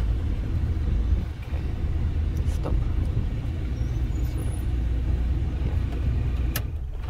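Vehicle engine idling, a steady low rumble heard from inside the cab, with a single sharp click near the end.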